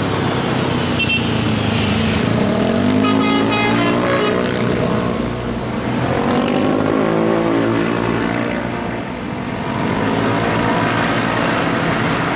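Heavy diesel vehicle's engine running close by as it passes, pitch rising and then falling away. A thin high steady tone sounds over it in the first few seconds, and a brief rapid high chatter comes about three seconds in.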